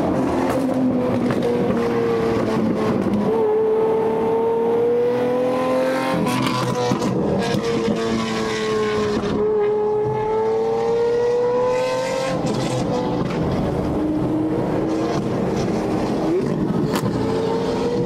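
Lamborghini Aventador V12 engines and exhausts cruising on an expressway, a steady drone whose pitch drifts gently up and down with the speed. Road and wind noise run underneath, and the revs rise quickly near the end.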